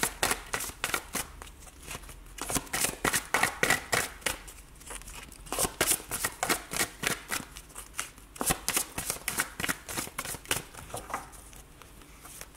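An oracle card deck being shuffled by hand: a fast run of short card slaps and flicks in several bursts with brief pauses, thinning out near the end.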